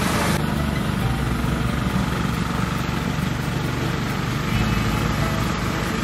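Engine-driven portable rice thresher running steadily, a low mechanical drone. The brighter upper hiss drops away about half a second in.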